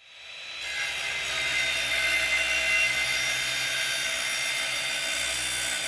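An electric power tool running at speed: a steady high-pitched whine over a hiss, building up over the first second.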